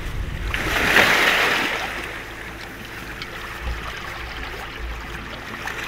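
Sea waves washing over a stony shore, one swelling and breaking about a second in, then a quieter steady wash, with some wind rumble.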